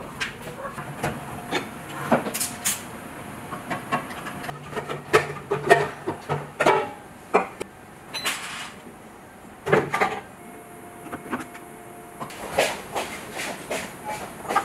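Hands working a large plastic water-cooler jug and desk-fan parts with tools: an irregular string of plastic clicks, knocks and scrapes, busiest in the middle and with a sharp knock about ten seconds in.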